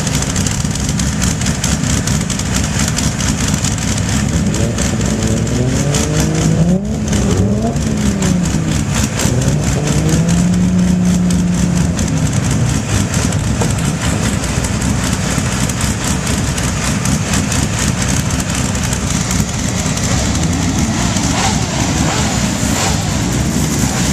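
Race-prepared Chevrolet Corvette C6's V8 idling loudly at the exhaust. It is revved up and let fall a few times about a quarter of the way in, held briefly at raised revs, then settles back to a steady idle.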